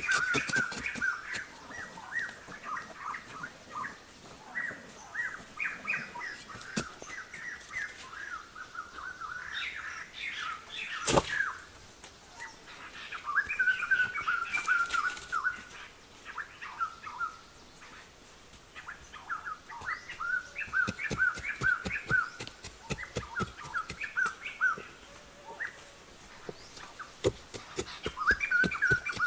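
Birds chirping over and over in short, quick calls, with scattered tapping and knocking, including one sharp knock about eleven seconds in.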